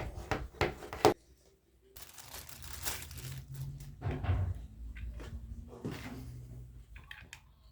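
Unboxing handling sounds: a few sharp plastic clicks, then several seconds of packaging rustling with bumps and a heavier thump about four seconds in.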